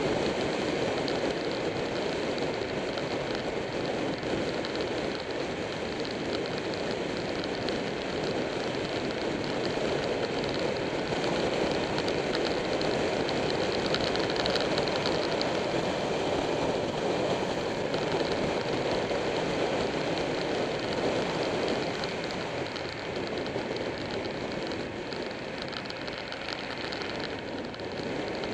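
Steady rush of wind over the microphone of a camera mounted on a motorcycle riding at speed, with the bike's engine and tyre noise blended underneath.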